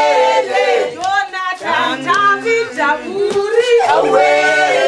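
A group of men and women singing a song together in harmony, several voices holding notes at once.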